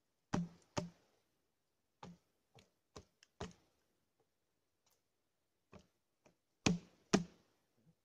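Boots knocking on a felled log as a man steps up onto it and shifts his weight: about ten short wooden knocks in irregular pairs, the loudest two near the end.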